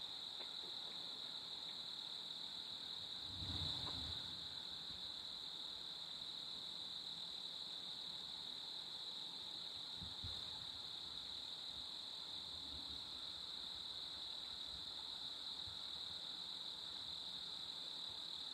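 Steady, unbroken high-pitched cricket chorus in the woods, with one soft low thump about four seconds in.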